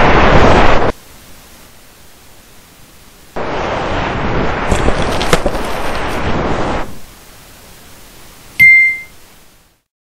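Cartoon sound effects for a tornado: loud rushing wind noise that cuts off about a second in, then a second stretch of wind noise with a few crackles. Near the end comes a single short, bright ding.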